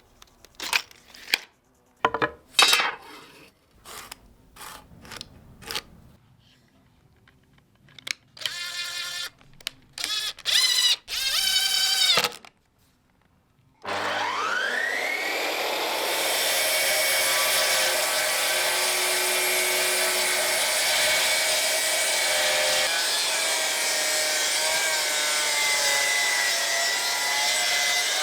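Scattered knocks and handling sounds, then a power saw whines up to speed about halfway through and runs steadily, cutting through a thick seasoned-oak block, its pitch dropping a little under load.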